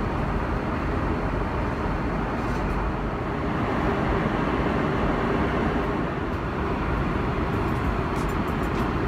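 Steady cabin noise of an Airbus A340-600 in flight, an even rush of engine and airflow noise.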